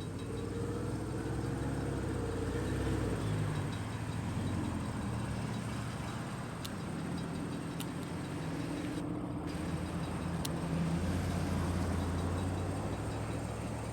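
An engine running steadily with a low hum, its pitch shifting slightly in the first few seconds, with a few sharp clicks in the middle.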